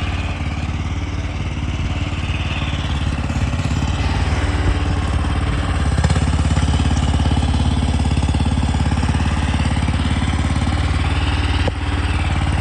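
Mini skid steer's engine running steadily while the machine is worked. It gets a little louder about halfway through and dips briefly near the end.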